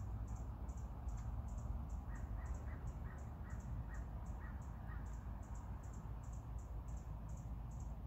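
A crow cawing in the distance, a quick run of about nine caws starting about two seconds in and lasting some three seconds, over a steady low urban rumble. A high, faint chirp repeats about four times a second throughout.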